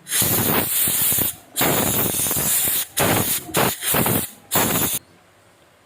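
Loud hissing spray in several bursts, the longer ones about a second, with short pauses between; it cuts off suddenly about five seconds in.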